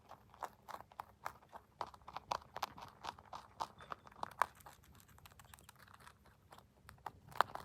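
A white rabbit chewing dry pellets, crunching them in a quick steady rhythm of about three crunches a second, with one louder crunch near the end.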